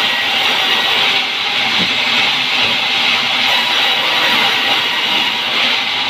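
Band sawmill cutting through a pine log: a steady, loud blade-and-wood noise with a faint constant whine from the running saw.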